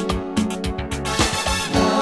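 Instrumental passage of a Christmas song: sustained chords over a steady drum beat, with no singing.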